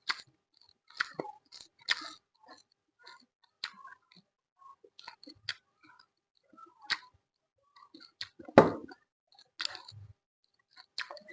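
Close-miked chewing and crunching of food: a run of short, irregular mouth clicks and crunches with quiet gaps, one louder crunch about two-thirds of the way through.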